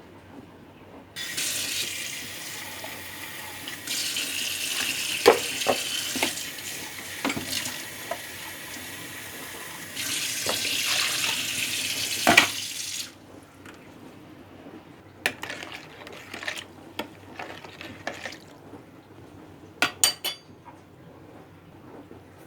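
A water tap running into a sink for about twelve seconds. The flow gets louder about three seconds after it starts, then eases off, and the water cuts off sharply. Dishes or glasses clink under the stream, and a few more clinks follow once the water stops.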